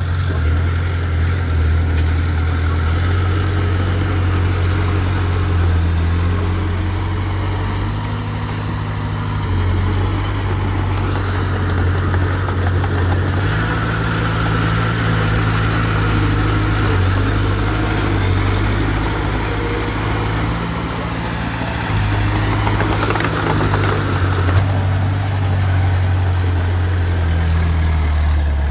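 Heavy diesel engine of earthmoving equipment running, its low note stepping up and down several times as the load changes.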